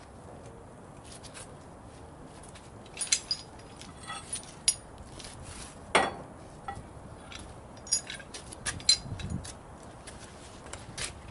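Steel chain clinking and clanking in irregular knocks as it is handled and wrapped around a truck tire, with a few louder metallic strikes.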